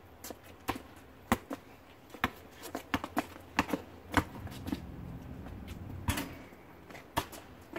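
Basketball dribbled on an asphalt driveway: a string of sharp, irregular bounces during one-on-one play.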